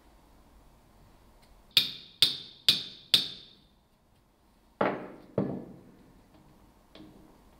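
Four quick hammer taps on a steel pin punch, about half a second apart and ringing metallically, driving a retaining pin into the bevel-gear hub of a cast-iron Bilstein car jack. About a second later come two duller knocks.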